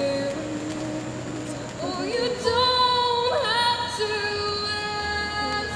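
Music with a woman's voice singing long held notes that change pitch every second or so.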